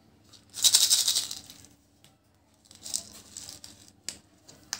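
Small sugar-coated candies rattling inside a plastic egg as it is shaken, in two bursts, the first louder. A couple of sharp plastic clicks near the end as the egg's two halves are twisted apart.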